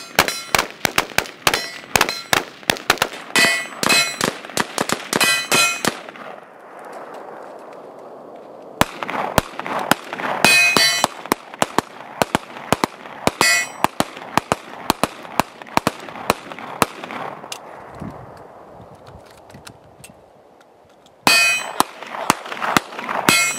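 Strings of rapid gunfire from an AR-15 rifle and a pistol, with steel targets ringing as they are hit. There are three bursts of shots, with short lulls between them about six seconds and seventeen seconds in.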